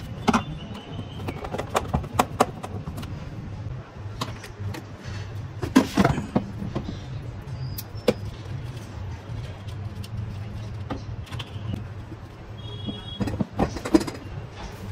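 Clicks, taps and knocks of plastic parts being handled and fitted while a plastic ride-on toy car is put together, over a steady low hum.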